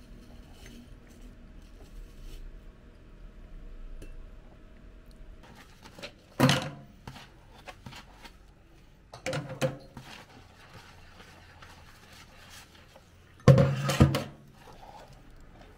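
Washing up by hand at a stainless-steel sink: a sponge scrubbing dishes, with three loud clatters of dishes knocking against the sink in the second half, the last the loudest.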